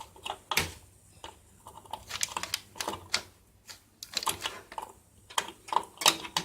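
Irregular small metal clicks and scrapes of a screwdriver prying the CMOS battery out of its holder on a PC motherboard.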